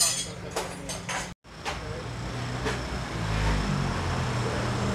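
Metal tools knocking and clinking against a motorcycle front fork tube clamped in a bench vise, a handful of sharp knocks. A low steady hum comes in from about two seconds in.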